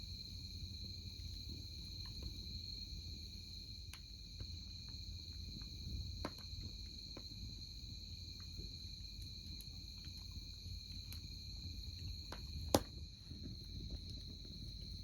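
Insects trill steadily in a continuous high tone while a wood campfire crackles with scattered pops. The sharpest pop comes near the end.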